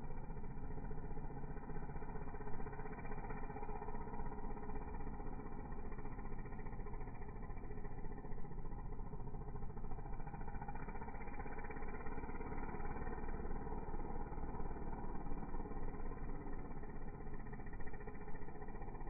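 Gas-powered string trimmer running steadily while cutting grass.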